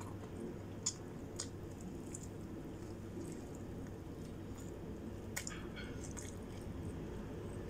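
Quiet chewing with soft wet mouth clicks while eating rice and food by hand, a few faint sharp smacks standing out over a low steady room hum.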